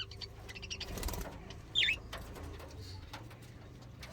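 Pet budgerigars chirping: a few short, high chirps, the clearest and loudest about two seconds in, over a low steady hum.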